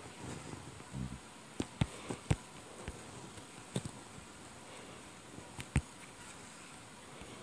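Faint scattered clicks and taps, about eight short ones, over a faint steady buzz in a quiet room.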